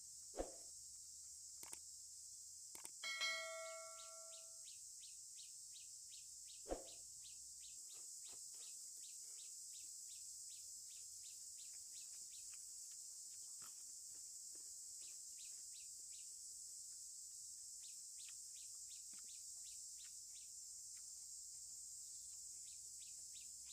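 Steady high-pitched insect drone with quick chirps about two a second. A brief ringing call about three seconds in, and two sharp clicks, one near the start and one about seven seconds in.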